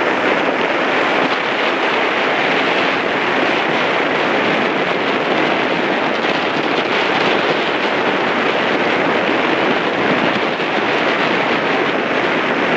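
Steady rushing wind noise on the microphone, even and unbroken, with no oar strokes or engine note standing out.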